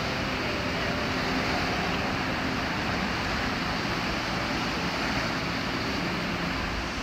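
Steady rush of small waves breaking on the shore, with the low hum of a jet ski idling just offshore that fades out a few seconds in.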